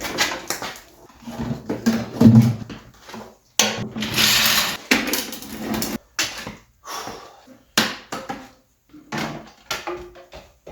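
Rummaging through stored car parts: a series of knocks, clunks and scraping as objects are shifted and dragged about. The longest scrape comes about a third of the way in. The sound starts and stops abruptly several times.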